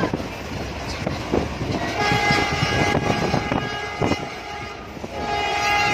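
Passenger train running with rattling and knocks from the rails, its horn sounding twice: a long blast about two seconds in and another starting near the end.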